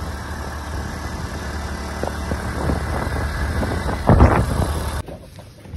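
Motorcycle riding along a road: steady engine and wind rumble on the microphone, with a brief louder buffet about four seconds in. The sound drops away suddenly near the end.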